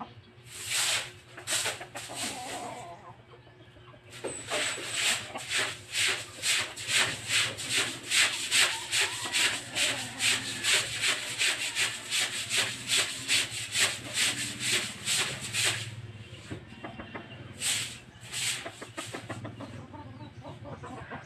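Broom scrubbing a wet concrete floor in quick back-and-forth strokes, about two or three a second, in a long run starting a few seconds in, then a shorter run near the end.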